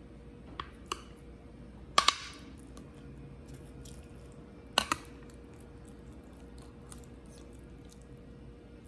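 A metal serving spoon clinking against a glass baking dish and plate while serving casserole: two light taps in the first second, then two sharp clinks about two and five seconds in. A faint steady hum runs underneath.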